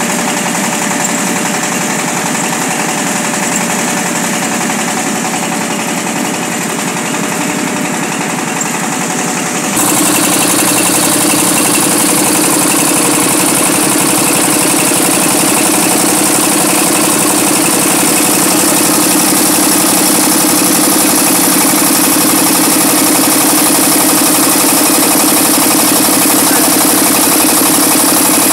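Mobile rice mill running steadily, its engine driving the belt-driven rice huller. About ten seconds in the sound suddenly becomes louder and hissier, then stays steady.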